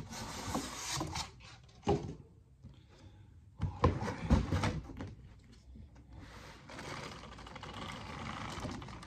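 Cardboard boxes rubbing and sliding against each other as the product box is pulled out of its shipping carton, with a knock about two seconds in and a cluster of knocks around four seconds as the box is tipped and set down. Near the end, a plastic bag crinkles as the wrapped RC truck is drawn out of the box.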